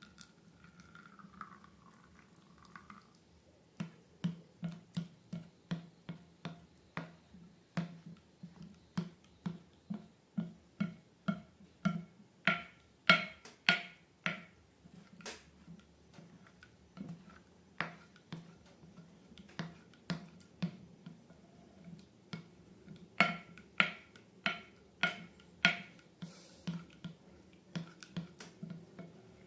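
Slime being pressed and poked by hand, making a steady run of sharp, sticky clicks and pops about two a second, with the loudest ones in the middle and near the end.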